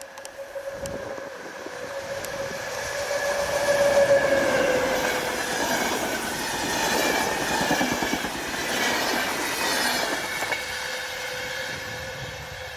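EU07 electric locomotive hauling a passenger train through a station at speed. Its steady whining tone drops in pitch as it passes, about four to five seconds in, followed by the coaches' wheel rumble and clatter, which fades toward the end.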